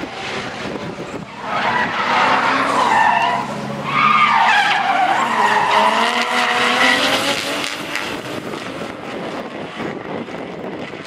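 Two drift cars sliding sideways in tandem, engines revving and tyres squealing as they spin up in smoke. It swells about one and a half seconds in, stays loud with a wavering pitch for several seconds, and eases off near the end.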